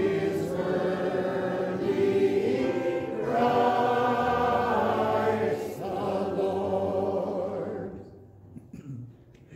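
Congregation singing an offertory hymn together; the last sung note fades away about eight seconds in.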